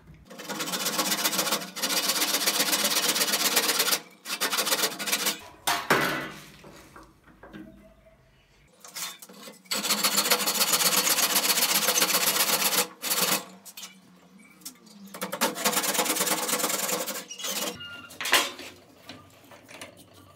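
Hand saw cutting through a wooden block in fast back-and-forth strokes, in four spells with short pauses between them. A single sharp knock near the end.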